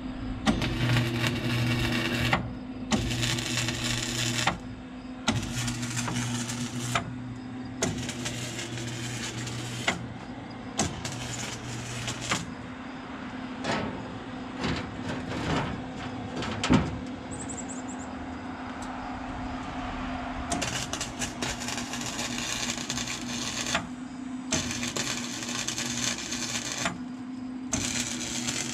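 MIG welder running in short bursts of one to two seconds with brief pauses between, crackling while the arc is struck, over a steady low hum.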